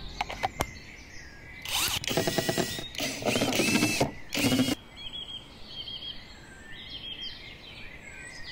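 Two sharp clicks as a battery is fitted to a Trend T18S cordless tool. Then the cordless driver runs in four short bursts with a fast rattling chatter, driving a screw into a wooden plaque. After that, small birds chirp against a faint outdoor background.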